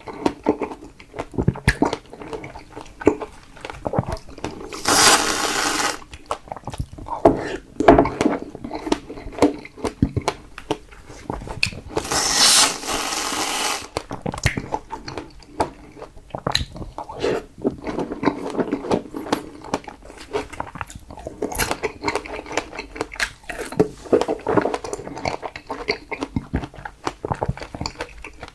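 Close-up mouth sounds of someone eating fresh strawberries: wet chewing, biting and smacking in many short clicks. There are two longer noisy stretches of a second or two, about five and twelve seconds in.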